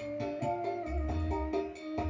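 Recorded music played through a home active speaker with an 8-inch woofer and a tweeter: a melody of held notes over a heavy, pulsing bass line.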